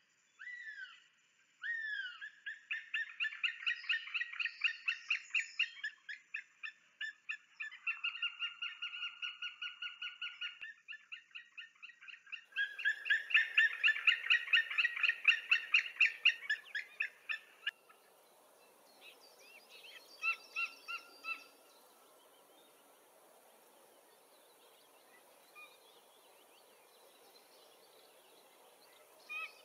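White-tailed eagles calling: long bouts of rapid, evenly repeated yelping notes, loudest between about 13 and 17 seconds and stopping abruptly near 18 seconds. A few weaker calls follow a couple of seconds later over a faint outdoor hiss.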